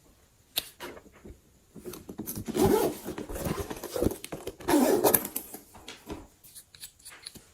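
Slime being squeezed and pressed by hand: a run of small sticky clicks and pops, with two louder squelches about two and a half and five seconds in.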